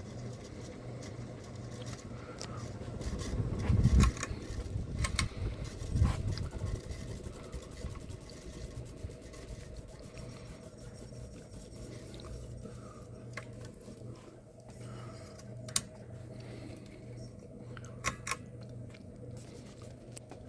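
Harbor Breeze Alaska 42-inch ceiling fan running with a steady low motor hum. Uneven rumbling and knocks come a few seconds in, and there are a few sharp clicks later on.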